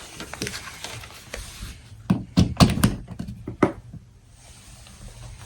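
A power plug is handled and pushed into a socket: some rustling, then a quick run of about five knocks and clicks about two seconds in.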